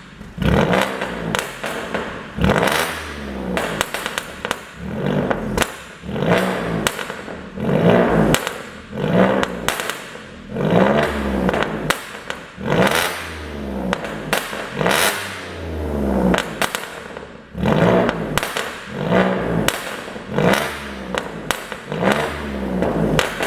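2012 Audi A6 3.0 TFSI's supercharged V6 revved in short repeated blips, roughly one every one to two seconds, each rise and fall in revs followed by popping and crackling from the exhaust. The crackles come from a tune set up to make the exhaust pop on overrun.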